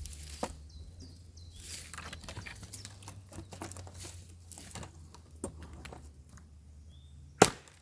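Dry, rotting wood being broken and pried apart with a machete: irregular cracking, crackling and tearing, with one sharp, loud strike near the end.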